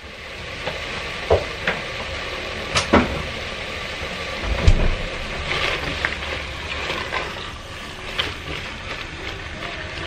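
Ground beef sizzling in a pressure-cooker pot with a splash of vinegar just added, stirred with a wooden spoon that knocks and scrapes against the pot now and then. A low thump about halfway through.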